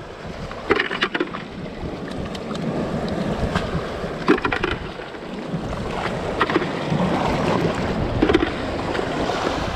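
Wind buffeting the microphone over the sea's surf, with several short sharp clicks and clacks of rock-snail shells being picked off the rocks and gathered into a bucket.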